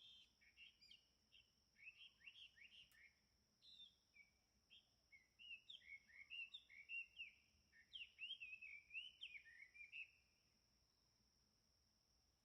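Faint songbirds chirping in quick, varied twittering phrases, which stop about ten seconds in, over a faint steady high-pitched hum.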